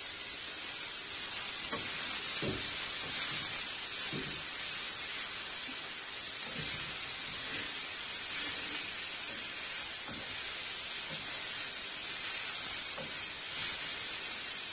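Sliced leeks and shallots sizzling as they soften in a frying pan, stirred with a wooden spoon. The spoon knocks against the pan a few times.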